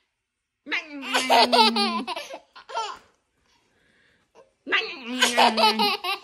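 A toddler laughing heartily in two bouts, with a short quiet pause between them.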